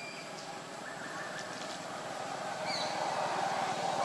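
Outdoor forest ambience: a few short bird chirps over a steady background hiss that grows louder in the second half.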